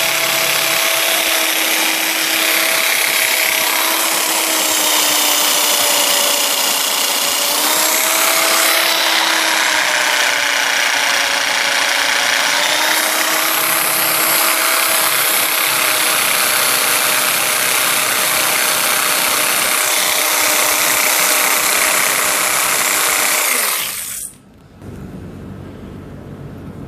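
A small electric motor running steadily with a whine that wavers slightly in pitch, then switches off abruptly about 24 seconds in.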